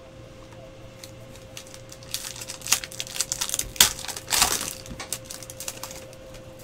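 Trading cards being flipped through by hand: quick clicks and rustles of cardstock sliding and snapping against each other, busiest from about two seconds in, with the sharpest clicks around four seconds. A faint steady hum runs underneath.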